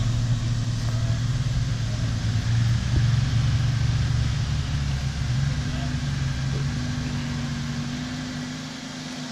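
Jeep Wrangler's engine running at low revs as it crawls slowly over a steep dirt mound, a steady low drone that eases off near the end.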